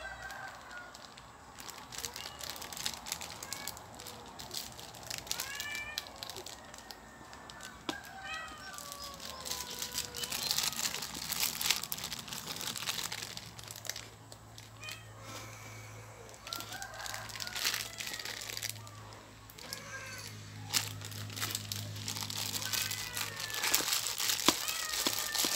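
Plastic bag worn over a hand crinkling and rustling as it squeezes and mixes cooked rice with fish in an aluminium bowl, while cats meow over and over for the food. A low steady hum runs through the middle.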